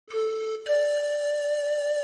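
Slow instrumental music with a flute-like lead: a short note, then a step up to a higher note held for over a second.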